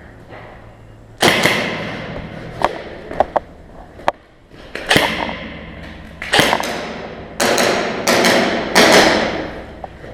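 Airsoft gunfire: about six sharp single shots, each with a trailing tail of about a second, with a few lighter clicks between the first two.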